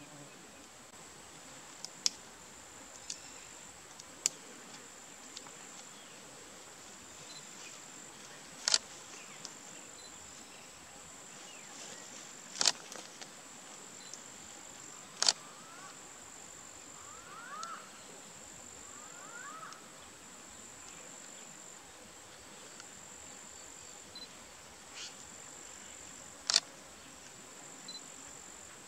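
Steady high-pitched insect buzz in open grassland, broken by about five sharp, loud clicks a few seconds apart.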